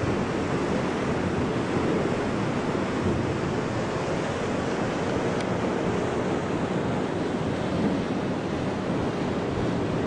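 Steady rushing noise of wind on the microphone and river water, heard from the deck of a riverboat.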